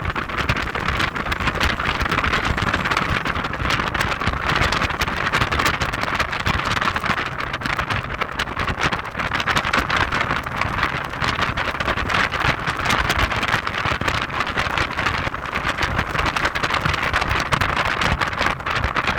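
Heavy wind noise buffeting the microphone of a moving Audi TT 225 Quattro roadster, steady and unbroken, with the car's low running rumble underneath.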